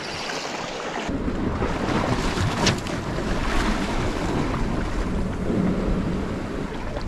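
Wind buffeting the microphone over the wash of the sea against rocks, the rumble growing heavier about a second in. A single brief click sounds about two and a half seconds in.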